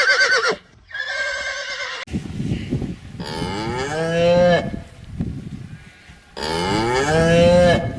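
Farm animal calls: a short wavering call at the start and another about a second in, then two long calls, each about a second and a half, bending down in pitch near the middle and near the end.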